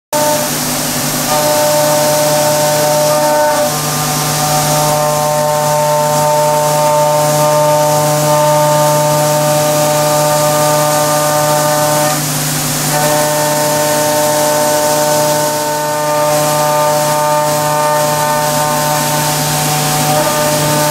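CNC milling machine cutting a die block under coolant spray: the spindle and cutter run with a steady whine of several pitches over the hiss of the spray. The whine drops out briefly about twelve seconds in, then resumes.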